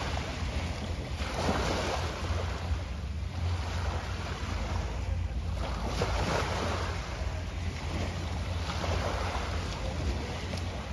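Small waves washing onto the shore in repeated swells every second or two, over a low steady rumble.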